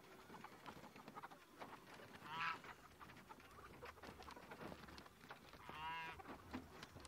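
Chickens calling as they come out of their coop: a short call about two seconds in and a longer drawn-out one near six seconds, over faint scratching and clicking.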